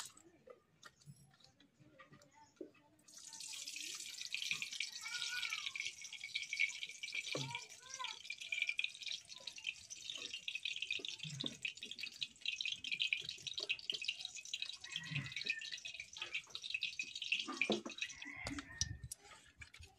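Cooking oil heating in an aluminium kadai over a wood fire, giving a steady crackling sizzle that sets in about three seconds in and stops shortly before the end.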